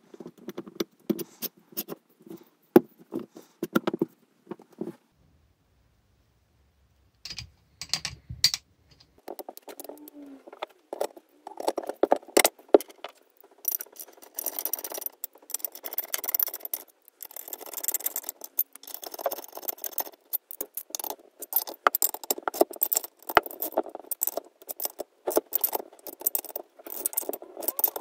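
Hand tools and small metal parts clinking, scraping and rattling in irregular bursts, with a short break about five seconds in.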